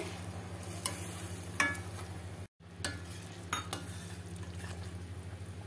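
A steel spoon stirring thin, watery curry gravy in a steel kadhai, scraping and knocking against the pan a few times, over a steady low hum. The sound cuts out for a moment about halfway through.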